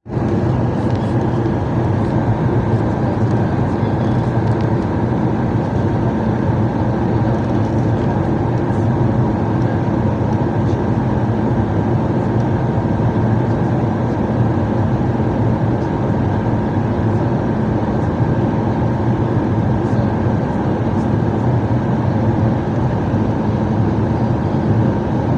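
Steady cabin noise inside a Boeing 737 MAX airliner in flight: the even rush of its engines and the air flowing past the fuselage, deep and unchanging, with a faint thin steady tone above it.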